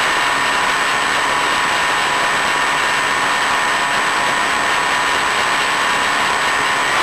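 Steady loud rushing noise with a few thin steady whining tones, as carried by the onboard audio of a Multiplex Easystar FPV model plane in flight: airflow and the electric motor, mixed with the hiss of the video link.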